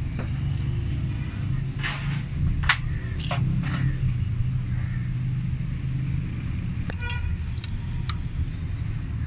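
Fiat 640 tractor's diesel engine idling steadily, with a few light metallic clinks from hands and tools working on its CAV injection pump.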